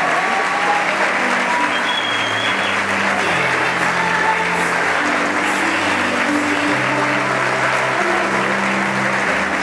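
Large audience applauding over music that holds sustained low notes, changing pitch every second or so.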